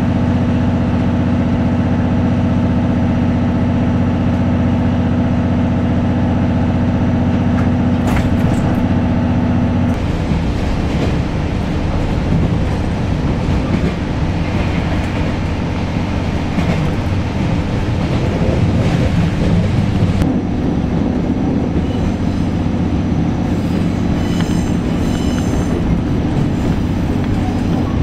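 Diesel-hauled 12-series passenger train running, heard from on board: a steady diesel engine hum over rolling wheel-and-rail noise. About ten seconds in the hum gives way to rougher running noise, and it returns about twenty seconds in. Brief high-pitched squealing comes near the end.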